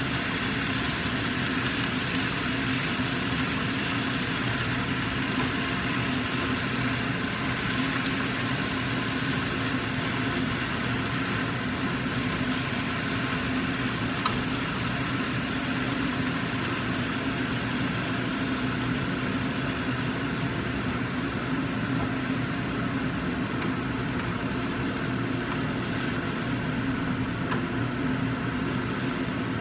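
Steady hum of a kitchen range hood fan running over a gas burner, with frying vegetables sizzling in the pan and a single spatula tap on the pan about halfway through.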